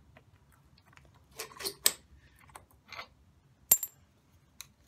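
Light metallic clinks and clicks of a strut's upper spring seat and a compressed steel coil spring knocking together as the seat is pried up off the strut: a few scattered clinks, with one sharp click a little before the end.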